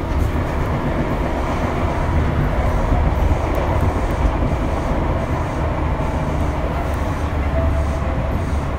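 Tobu 8000 series electric train standing still, its onboard equipment running with a steady hum and hiss.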